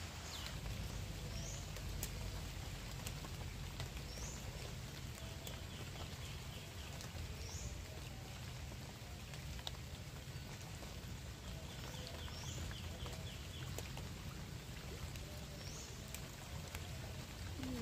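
Light rain pattering steadily on a pond's surface and the bankside plants, with a low rumble under it. A few short, high animal calls come through now and then, along with two brief rapid trills.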